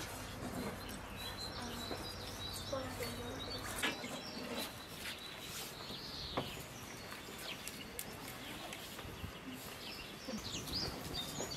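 Songbirds chirping in the background, with scattered light clicks and rustles of hands working with utensils and herbs.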